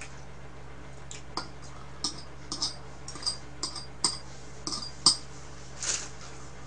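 Sounds of eating at a table: a dozen or so short, irregular clicks and taps from chewing and chopsticks on dishes, over a steady low hum.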